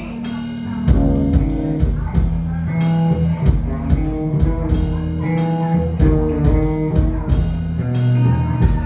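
A live band playing: electric guitars with held notes over a steady beat of about two hits a second.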